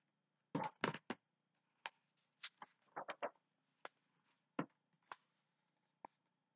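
Pages of a picture book being handled and turned: a quick cluster of paper rustles and taps about half a second in, followed by scattered single soft clicks and paper sounds.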